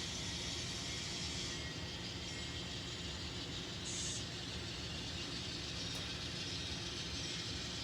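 N scale model train running on the layout with its decoder sound muted: a steady, quiet mechanical hum and rattle of the motor and wheels on the track. A short hiss comes about four seconds in and a faint click near six seconds.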